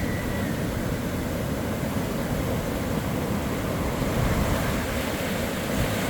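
Surf breaking and wind buffeting the microphone: a steady low rumbling wash at an even level.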